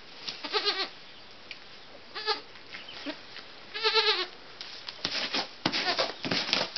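Goat bleating: three short, quavering bleats at about half a second, two seconds and four seconds in, then rustling and light knocks in straw bedding near the end.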